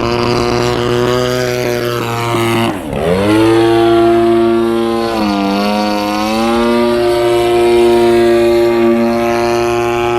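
Motor and propeller of a radio-control aerobatic airplane, a steady whine that shifts pitch with throttle. Nearly three seconds in, the pitch drops sharply as the throttle is cut, then surges back up. A second, smaller dip and rise comes around the middle.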